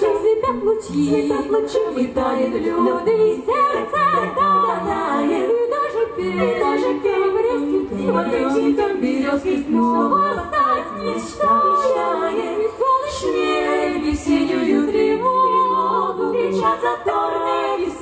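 Female a cappella vocal group singing into handheld microphones, several voices moving together in harmony without instruments.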